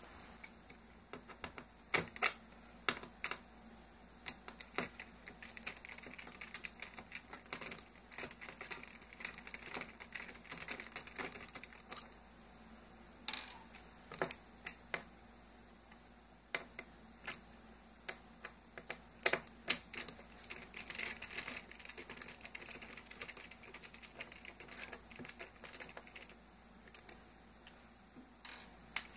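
Irregular light clicks and ticks of hand work with a small screwdriver on tiny screws in a laptop's screen assembly, with faint scraping between the clicks.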